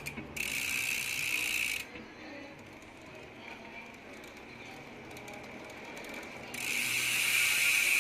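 Koozer XM490 Pro mountain-bike rear hub freewheeling: its pawls ratchet in a fast, loud buzz, drop to scattered single clicks for a few seconds, then buzz loudly again from about six and a half seconds in.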